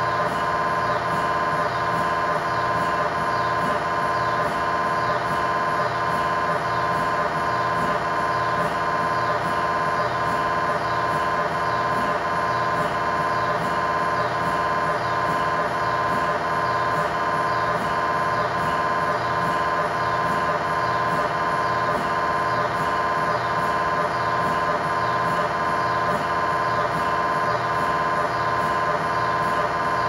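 GE MRI scanner's gradient coils buzzing through a coronal T1 fast spin-echo (FSE-XL) sequence: a loud, steady tone with a regular pulsing beat repeating throughout.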